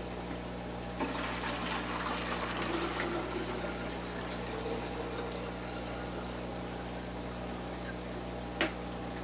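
Water poured from a plastic pitcher into a glass jar in a steady stream, starting about a second in, topping off a kalkwasser (pickling lime) mix. A light tap near the end.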